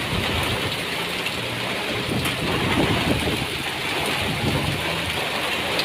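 Heavy rain with hail, driven by strong wind: a steady, dense hiss of falling water with many small sharp impacts scattered through it.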